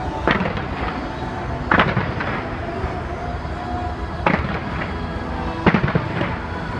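Aerial fireworks display going off: several sharp bangs at irregular intervals, some in quick doubles, each trailing an echoing tail, over a steady background din.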